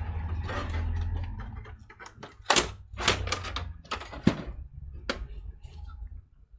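Clicks and knocks of a small desktop PC's case and internal parts being handled by hand, about half a dozen sharp ones through the middle seconds over a low hum.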